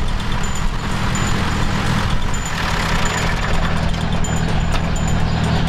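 John Deere tractor engine idling steadily.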